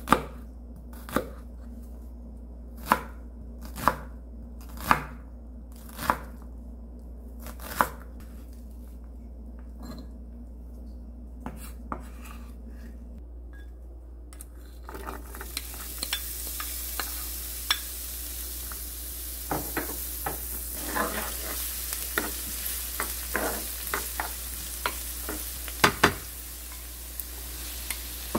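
Chef's knife chopping an onion on a wooden cutting board, about seven sharp knocks roughly a second apart. Then, from about fifteen seconds in, diced onion sizzling in olive oil in a frying pan, with light clicks of a wooden spoon against the pan and a loud double knock near the end as canned corn is tipped in from a glass bowl.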